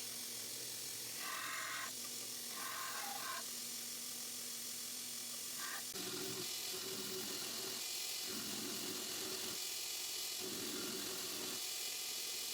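Belt grinder grinding a steel knife blank: a steady hiss with repeated passes of the steel against the belt, each about a second long. The sound changes about halfway through.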